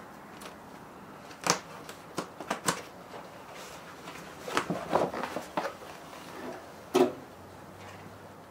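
Plastic water barrier sheet being peeled off a van's sliding-door inner frame: scattered crackles and rustles of the plastic, in small clusters, with one sharper snap about seven seconds in.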